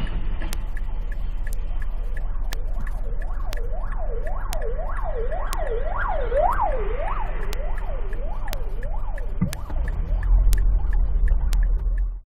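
Emergency-vehicle siren in a fast yelp, sweeping up and down about twice a second, growing louder toward the middle and then fading, over steady low road and engine rumble heard from inside a car. The rumble swells near the end, then the sound cuts off abruptly.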